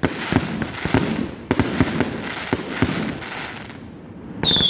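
Fireworks crackling in rapid pops that die away about three and a half seconds in; near the end a loud, high whistle starts and falls slightly in pitch.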